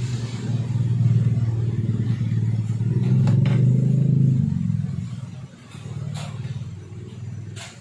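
A motor vehicle engine running close by, loudest in the first four seconds or so, then fading away about five seconds in. A few sharp clicks sound over it.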